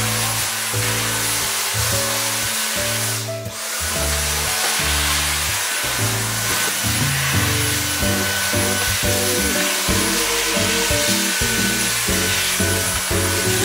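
Background music over a cordless handheld vacuum cleaner's motor running with a steady high whine and hiss. The motor noise drops out briefly about three seconds in.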